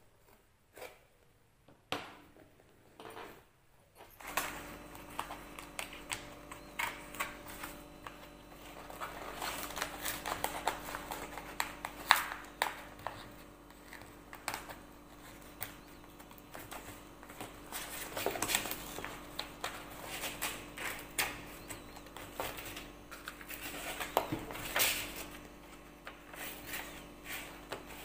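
Irregular clicks, taps and rustles of objects being handled. A steady low hum starts about four seconds in and continues under them.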